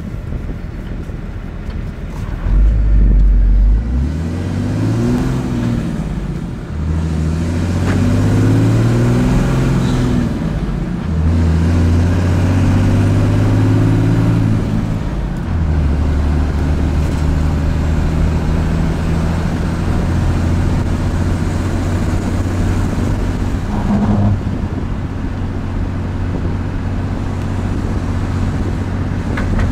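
A 6.7L Cummins turbo-diesel running with a dumped stock downpipe and no DPF, heard from inside the cab as it pulls a heavy trailer away from a stop. The engine note climbs in each gear and breaks off at each shift of the G56 six-speed manual, several times in the first half. It then runs at a steady pitch at cruising speed for the rest.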